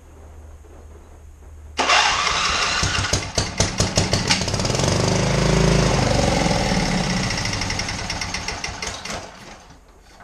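Electric starter cranking a blown 27 HP Briggs & Stratton V-twin mower engine on one cylinder. It kicks in suddenly about two seconds in, with even pulses as it turns over, and winds down near the end without the engine catching, apparently for lack of fuel in the carburetor.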